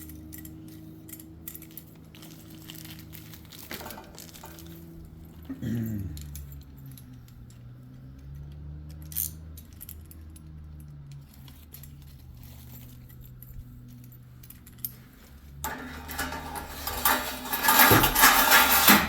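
Metal rollers and small hardware from a sliding-door track kit clinking and rattling as they are slid along the metal track, with scattered clicks and a louder run of rattling near the end. A steady low hum runs underneath.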